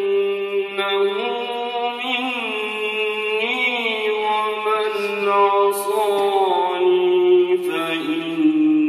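A man chanting Quran recitation in a slow, melodic style: long held notes that glide and waver in pitch, sung without a break.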